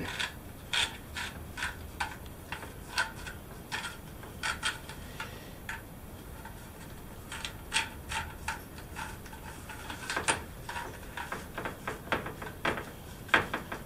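Light, irregular plastic clicks and ticks as a shower hose's end nut is turned by hand onto a handheld shower head, with a few louder clicks near the end.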